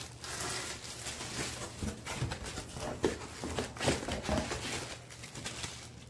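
Plastic wrap rustling and crinkling, with light irregular knocks, as vacuum cleaner parts are handled in a cardboard box.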